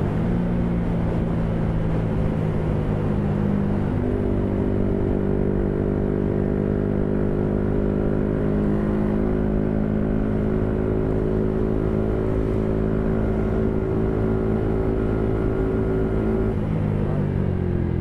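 Yamaha MT-125 motorcycle with an Arrow exhaust running at a steady cruise. The engine speed steps up about four seconds in, holds there, and eases back down near the end, with a low rumble of wind noise underneath.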